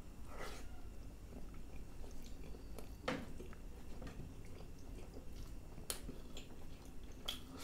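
A man chewing a mouthful of chicken in masala curry, with soft wet mouth sounds and a few sharp clicks.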